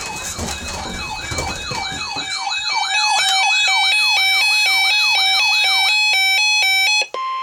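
Electronic siren sweeping up and down quickly, about three sweeps a second, switching to an alternating two-pitch hi-lo pattern near the end. A steady single-pitch alert tone, the NOAA Weather Radio 1050 Hz warning alarm tone, starts just before the end.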